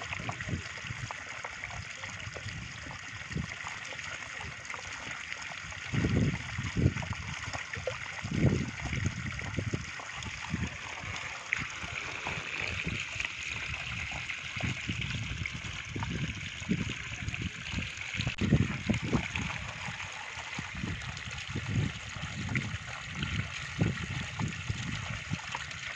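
Water pouring steadily through a cut in a mud bank and splashing down into a pit, with irregular low bumps throughout.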